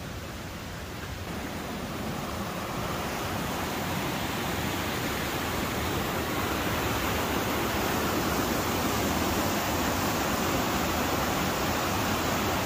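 Mountain creek rushing over rocks in white-water cascades, a steady roar that grows louder over the first several seconds and then holds.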